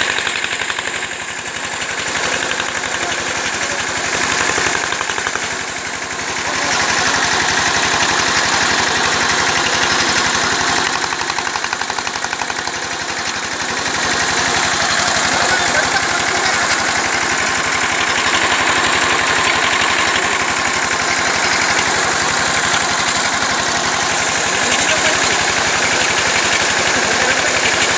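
A small tractor's engine runs steadily, driving a PTO centrifugal water pump, with water gushing in a strong jet from the pump's outlet pipe.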